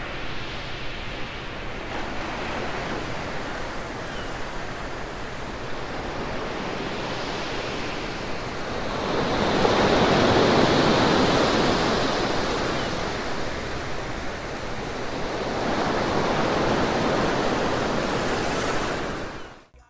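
Ocean surf washing on a shore, a steady rush of waves that swells louder about halfway through and again near the end, then cuts off suddenly.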